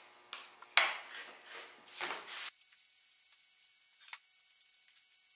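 Stir stick scraping and stirring thinned epoxy in a clear plastic cup: a few short scrapes, the sharpest about a second in. After about two and a half seconds it goes quiet apart from one faint tick near four seconds.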